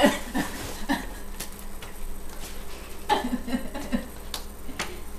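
Light knocks and shuffling of people moving on a tile floor, with brief muffled voice sounds about three seconds in.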